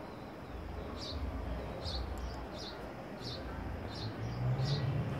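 House sparrow chirping, short single chirps repeated about one and a half times a second. A low rumble runs underneath, growing louder toward the end.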